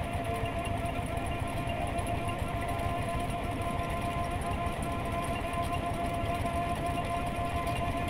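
Mini combine harvester's engine running steadily at idle, a fast even chugging with a steady whine over it.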